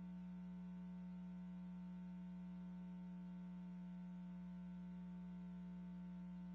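Steady electrical hum: one strong low tone with fainter higher tones above it, holding level with no other sound.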